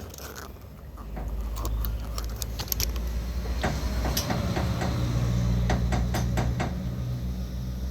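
A Fiat's front wheel being rocked by hand, knocking and clicking several times in a row: the sign of play in the worn suspension and steering joints (control arm bushing and rack axial joint). A low steady hum runs under it.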